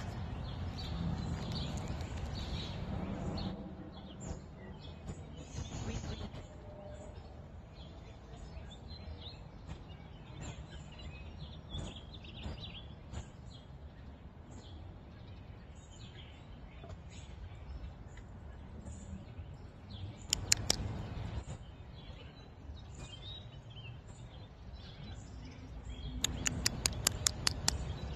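Small birds chirping on and off over a low background rumble that is louder in the first few seconds. A few sharp clicks come about two-thirds of the way through, and a fast run of about ten sharp clicks comes near the end; these are the loudest sounds.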